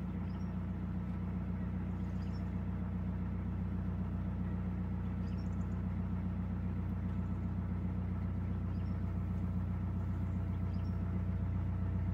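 Narrowboat diesel engine running steadily at low revs: a constant low hum.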